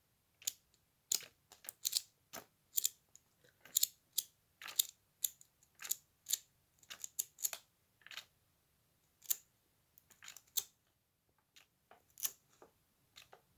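Pages of a building-set instruction booklet being turned quickly one after another: a string of short, crisp paper flicks and rustles, about one or two a second, with a brief gap near the end of the string.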